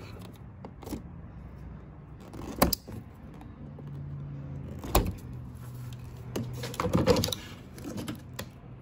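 Scattered sharp plastic clicks and knocks of a car side mirror's wiring connector and mirror being worked free from the door. The sharpest clicks come about two and a half and five seconds in, with a quick flurry near the end, over a steady low hum.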